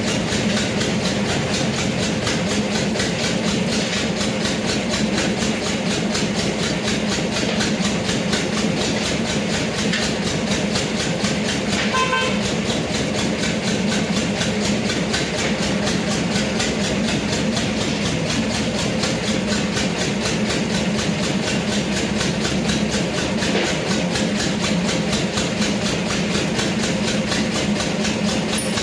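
A motor running steadily in a fast, even rhythm, with a short pitched tone about twelve seconds in.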